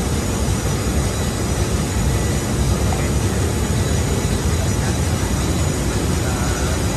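Steady loud drone of running machinery with a heavy low rumble, unbroken and without rhythm changes, the kind of background that fills a ship's engine-room workshop.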